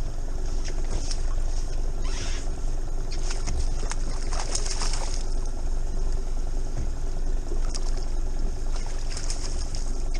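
Boat engine idling steadily, with scattered light clicks and a couple of short hissing sounds above the low drone.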